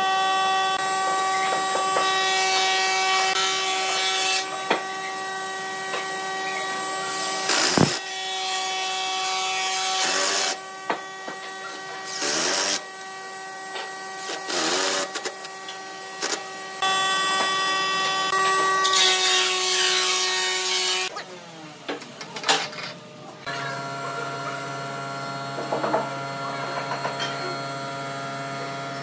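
A handheld electric drill whining at a steady pitch as it bores holes through a lathe faceplate into a wooden block. It stops and spins up again several times between holes.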